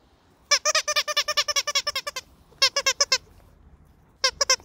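Squeaker inside a plush sheep toy squeezed over and over, giving three runs of quick high squeaks: a long run of about eight a second, then two short runs, the last near the end.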